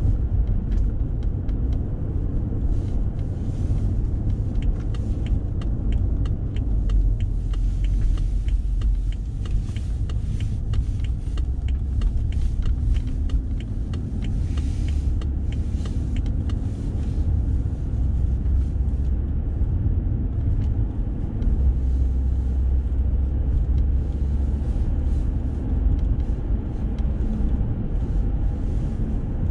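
Car driving along a city road, heard from inside the cabin: a steady low rumble of tyres and engine, with a scattering of light ticks and clicks over roughly the first half.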